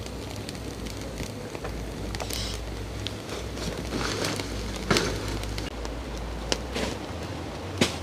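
Wood fire, freshly lit with dry banana trash and sticks, crackling with irregular sharp snaps, the loudest about five seconds in and just before the end, over a steady low rumble.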